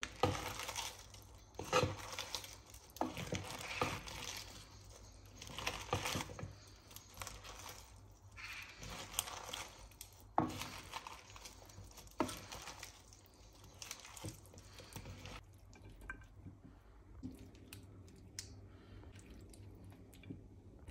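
Dressed salad being tossed with tongs in a wooden bowl: irregular wet rustling and squelching of lettuce, chicken and vegetables, with sharp clicks and knocks. After about fifteen seconds it gets quieter, with small clicks and rustles as the salad is lifted onto a plate.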